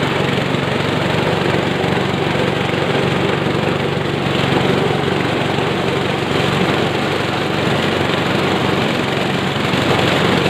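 Motor-driven power corn sheller running steadily under load, with a low engine hum beneath dense mechanical clatter, as ears of corn are fed through it and shelled.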